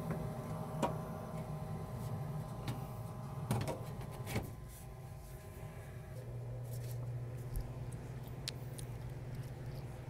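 Ducane gas furnace running with a steady low hum, the burner freshly relit, while its sheet-metal front access panel is handled and pushed back into place, giving a few short knocks and clicks about one, three and a half and four and a half seconds in.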